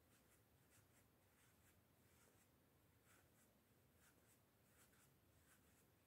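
Near silence, with a series of faint, soft rustles: polyester fiberfill being pushed by hand into a small crocheted amigurumi piece.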